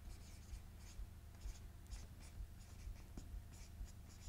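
Marker pen writing on a whiteboard: a string of short, faint squeaky strokes as a word is written out letter by letter.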